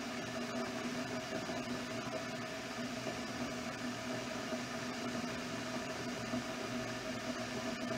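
Electric kettle heating water, not yet at the boil: a steady hiss with a faint low hum running through it.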